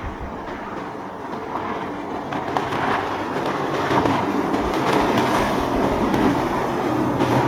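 Boat engines running with rushing water, growing louder over the first few seconds as the craft draws nearer, then holding steady. A few low thumps come right at the start.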